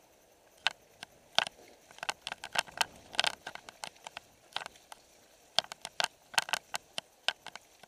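Irregular clicks and rattles of a mountain bike riding fast over a rough dirt trail, with uneven gaps between them.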